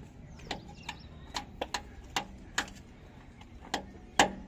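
Sharp metal clicks and taps of a spanner working the clamp bolt on a JCB 3DX filter housing, about ten at uneven intervals, the loudest near the end.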